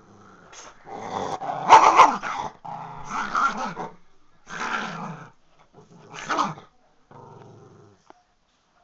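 Small chihuahua-type dog play-growling in a string of about five growls with short breaks between them, the loudest a little under two seconds in.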